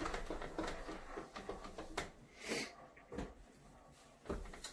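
A rag rubbing across a whiteboard in quick wiping strokes, erasing wet-erase marker, with a short hiss about halfway through.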